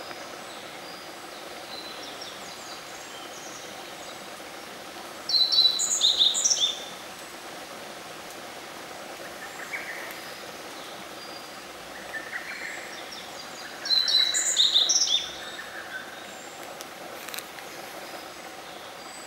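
Black-faced bunting singing: two short, bright song phrases of rapid high notes, one about five seconds in and the next about eight seconds later. Fainter, lower bird notes come in between, over a steady background hiss.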